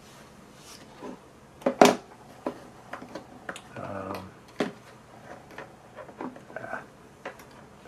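Scattered clicks and taps of a plastic tweezer multimeter and a coin cell being handled on a cutting mat, the sharpest click a little under two seconds in.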